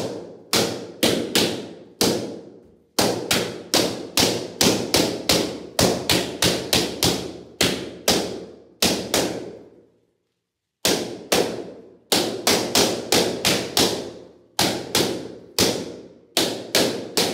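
Latex party balloons bursting one after another as a sword jabs them, a rapid run of sharp bangs at about two or three a second, each with a short echo. The run breaks off for about a second near the middle, then goes on.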